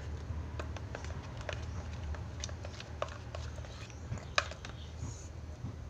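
Slime being stirred and kneaded by hand in a glass cup as the activator takes hold: irregular sticky clicks and squelches, one sharper click about four seconds in, over a steady low hum.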